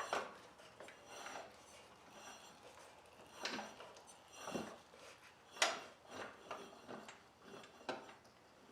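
Faint, irregular metallic clicks and knocks from the Kohler engine being turned over by hand with a wrench, its spark plug out.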